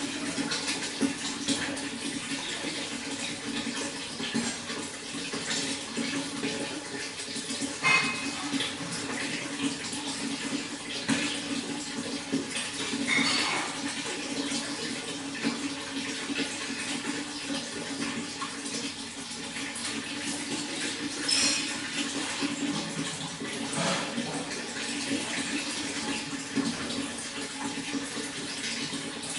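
Running water flowing steadily, with now and then a brighter splash or drip standing out, most plainly four or five times.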